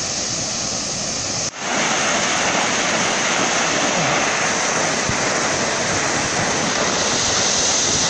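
Water jetting under high pressure from a broken gate valve on a large water-supply pipeline, making a steady, loud rushing hiss of spray. The valve was knocked off by a vehicle. The sound cuts out for an instant about one and a half seconds in, then returns slightly louder.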